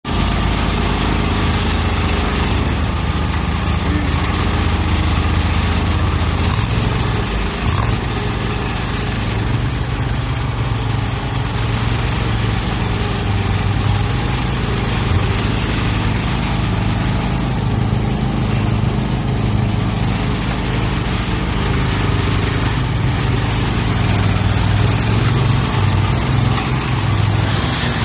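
Engine of a mini skid steer loader running steadily, its note wavering as load and speed shift.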